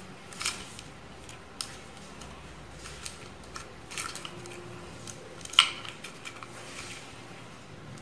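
PVC pipe fittings handled and pushed together: a string of scattered plastic clicks and knocks, the sharpest about five and a half seconds in.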